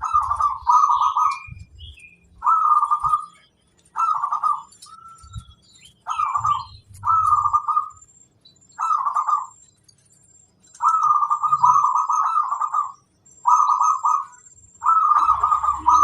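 Zebra dove (perkutut) singing: a run of rolling, trilled coo phrases, about ten in all, each under a second to two seconds long with short pauses between, over faint high chirps from smaller birds.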